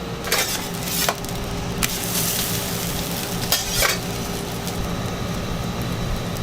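A crunch wrap sizzling steadily as it toasts on a hot cooking surface, with a few short clicks of a utensil against it.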